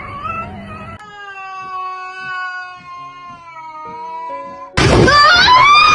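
A cat's short meow followed by a long drawn-out yowl held for about four seconds, slowly dropping in pitch. Near the end a much louder, wavering cry cuts in suddenly.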